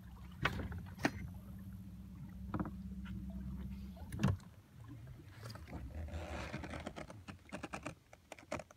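A small boat motor hums steadily and shuts off about four seconds in with a sharp knock. Scattered light knocks and rustles follow as the boat drifts up to a floating pool-noodle line.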